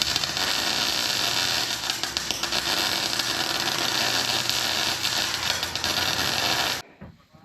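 Combine harvester running: a loud, steady mechanical rush of noise that cuts off abruptly near the end.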